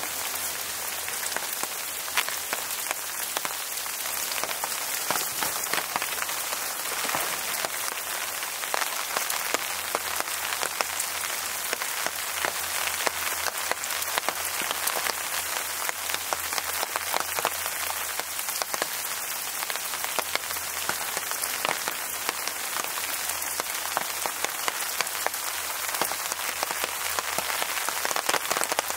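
Steady rainfall, with many individual drops striking close by.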